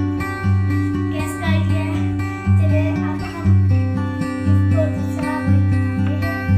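Background music led by plucked acoustic guitar, steady and rhythmic.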